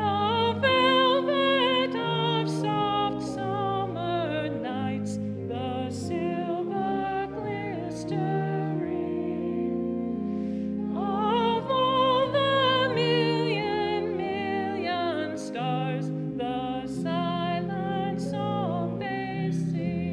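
A female cantor sings a solo line with wide vibrato over the organ's sustained chords, which change every second or so.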